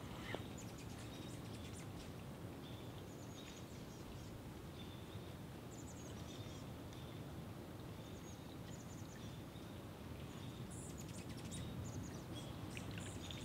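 Small birds chirping, with short high calls coming on and off throughout and more of them near the end, over a steady low rush of outdoor background noise.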